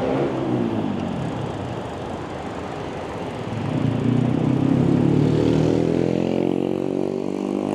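City road traffic, cars and motorbikes going by. A nearer vehicle's engine drones through the second half, loudest about five seconds in, then eases off.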